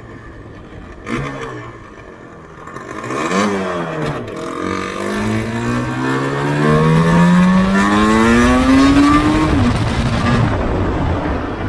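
Yamaha RZV500R's two-stroke V4 engine under acceleration. A quick rise and fall in revs comes first, then one long pull with the pitch climbing steadily for about five seconds before it drops suddenly as the throttle closes or the gear changes.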